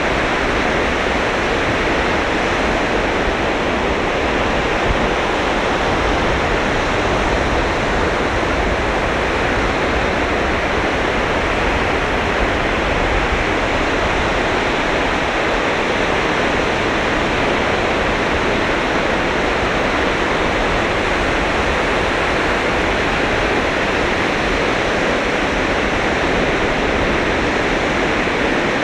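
Sea surf washing onto a sandy beach, a steady, continuous wash of waves with no single crash standing out.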